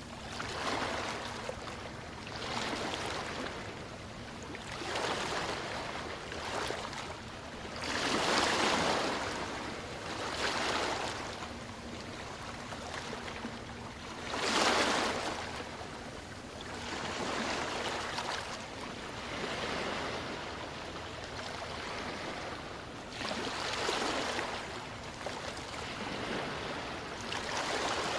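Sea waves washing in and drawing back, a soft rushing swell every few seconds, strongest about a third and halfway through.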